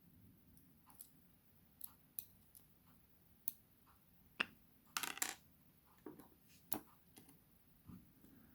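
Small metal tools clicking and tapping against the tiny pin-tumbler parts of a lock cylinder while a pin spring is worked out: sharp, faint ticks at irregular intervals, with a brief quick cluster about five seconds in.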